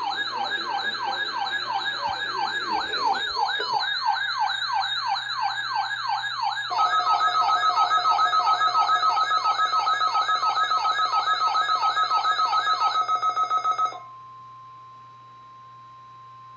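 Weather-radio alert alarm: an electronic siren sweeping rapidly up and down several times a second, joined about halfway by a steady high beep. Both cut off suddenly near the end, leaving a quieter steady tone like the 1050 Hz NOAA warning alarm tone.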